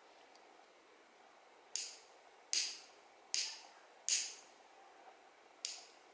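Metal nail clipper cutting fingernails: five sharp snips, four in a row under a second apart, then a fifth after a short pause.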